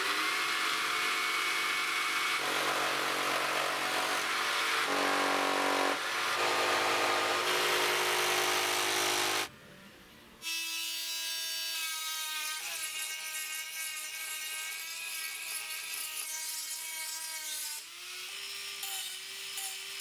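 Worx Bladerunner tabletop saw running, its blade cutting through a wooden board, gritty and changing in pitch as the wood is fed. After a brief break about halfway, a smoother, steadier motor whine of a power tool takes over, shifting pitch a couple of times.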